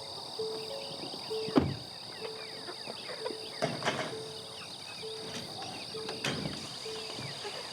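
Summer insect chorus: a steady high-pitched buzz, with a lower pulsing note repeating about once a second. A few sharp knocks sound over it.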